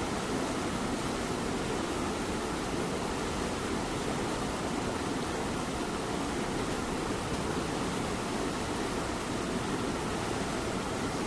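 A cat purring steadily under the even hiss of light rain.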